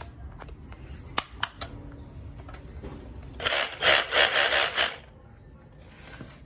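SDS-plus chuck of a Bosch GBH18V-26D rotary hammer clicking twice as a masonry bit is pushed in and locks. About a second and a half later comes a loud, rasping noise lasting about a second and a half.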